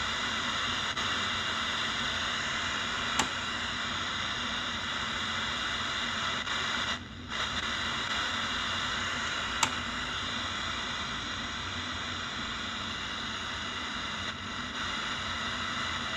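The Legenda P-305T radio-cassette player's radio receiver hissing with steady static through its small speaker, tuned to no station. A sharp click comes twice, about three and ten seconds in, and the hiss briefly drops out about seven seconds in.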